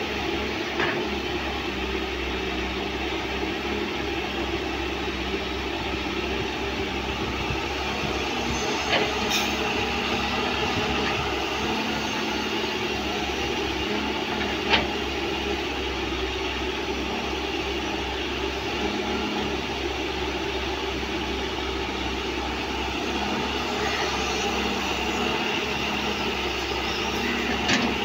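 John Deere 595D wheeled excavator's diesel engine running steadily as it digs soil and loads a dump truck. A few sharp clanks punctuate it.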